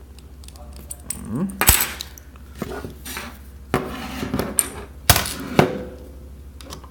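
Metal parts and tools of a Smith & Wesson revolver clicking and clinking as it is taken apart to remove the rebound spring, with a short rising scrape early on and several sharp knocks about two, four and five seconds in.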